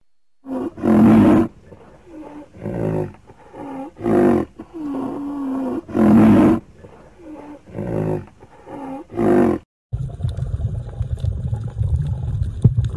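A large animal calling a dozen or so times: loud, roar-like cries with pitch that rises and falls, some short, one drawn out. Just before ten seconds the calls cut off and give way to a steady low underwater rumble of moving water.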